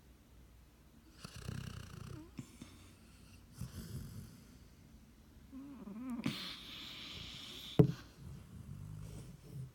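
A dog snoring in its sleep: about four slow snoring breaths roughly two seconds apart, with one short sharp click about eight seconds in.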